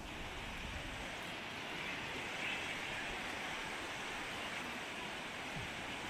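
Small waves breaking and washing up the sand at the water's edge: a steady hiss of surf that swells about two and a half seconds in.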